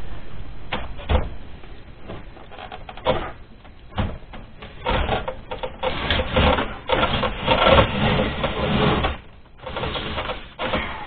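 The heat exchanger block of a Wolf CWL 300 ventilation unit is slid into the unit's housing. There are a few knocks, then a stretch of continuous scraping and rubbing as it goes in, and more bumps near the end as it is seated.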